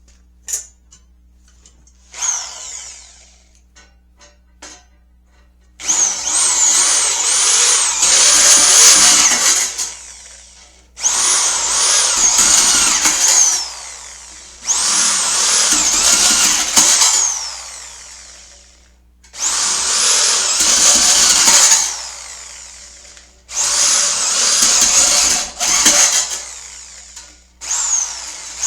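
Power drill with a step bit enlarging pilot holes in metal strips, run in about six bursts of two to four seconds each. The motor's high whine repeatedly rises and dips in pitch as the drill speeds up and slows.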